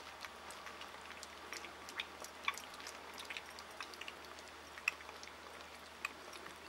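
Miniature Schnauzer puppies eating kibble from bowls: irregular small crunches and clicks, with a few sharper ones standing out.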